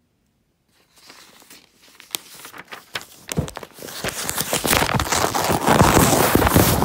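Sheet of paper crumpled and torn right against the microphone. It starts faint about a second in and builds into a loud, dense crackle of many sharp clicks.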